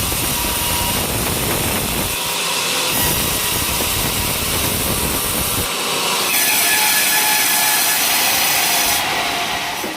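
Sawmill blade cutting through coconut-palm logs, with the machine's steady running noise. The sound changes abruptly several times, as in separate short clips joined together.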